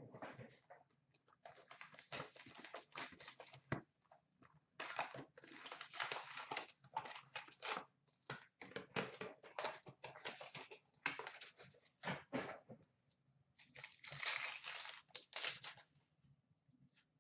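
Trading-card packs being torn open by hand, their wrappers crinkling and rustling in short, irregular bouts with brief pauses between.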